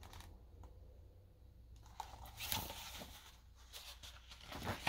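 Faint rustling and a few soft taps of a hardcover picture book's paper pages being handled and turned, over a low room hum.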